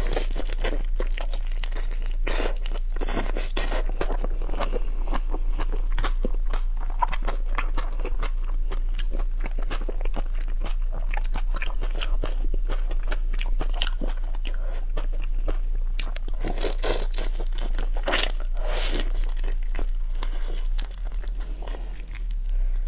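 Close-miked eating of whole raw shrimp: shells crunching between the teeth and steady chewing, with many sharp clicks and a few louder noisy bursts.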